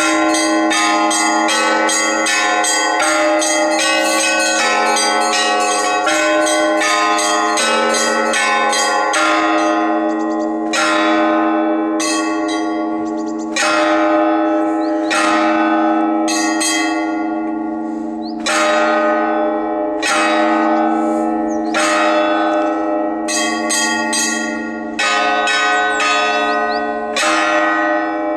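Orthodox monastery church bells ringing: a quick, dense run of strokes on several bells for the first several seconds, then slower separate strokes about a second apart that each ring out, over the steady hum of the larger bells.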